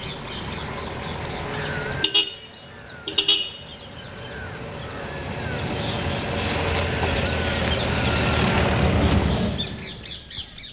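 Motor vehicle noise that builds and then fades as it passes, with two short horn toots about a second apart.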